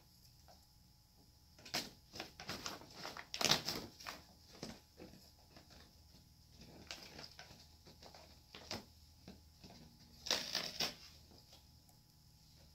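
Brown paper bag crinkling and rustling as a cat shifts about inside it. There is a longer spell of crinkling from about two seconds in, a few scattered rustles, and a second short burst later on.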